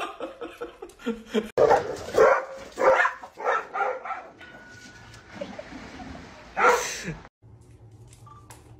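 Dog barking: a run of short barks, then one loud bark about two-thirds of the way in.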